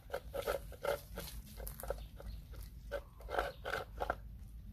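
Puppies and a dog eating from plastic bowls, making a quick, irregular run of chewing and smacking sounds.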